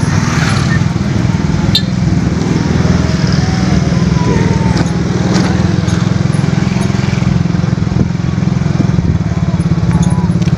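Small motorcycle engine running steadily, heard close while riding.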